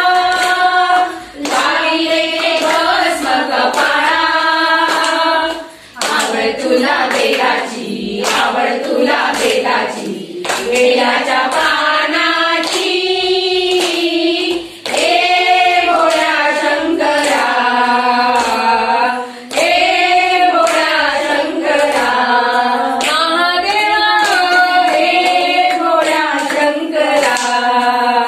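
A group of women singing a devotional bhajan together, unaccompanied, while clapping their hands in a steady rhythm to keep time.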